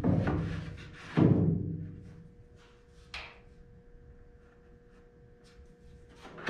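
A pine board thumping down onto the pickup's bed with a loud, booming thud about a second in, then a lighter knock a couple of seconds later.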